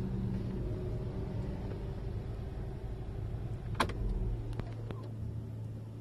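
VW Tiguan 2.0 TSI engine idling steadily, heard from inside the cabin. A sharp click comes about four seconds in and the engine note falls away. A few lighter clicks follow as the electric parking brake sets itself with the engine off.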